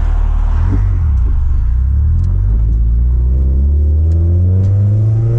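2000 Honda Prelude's four-cylinder engine pulling under acceleration while driving, its note climbing steadily in pitch over the second half. The engine picks up revs readily with little throttle, which the occupants credit to the new lightweight flywheel and clutch.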